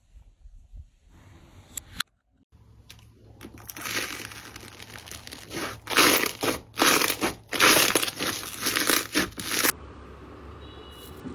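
Slime being squeezed and pressed by hand, making crinkly, crackling crunches. The crackling builds from about three seconds in, comes in several loud surges over the middle few seconds, and cuts off abruptly near the end.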